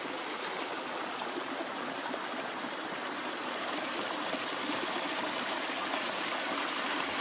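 Shallow woodland creek rushing and trickling over stones in a small riffle, a steady rush that grows gradually louder.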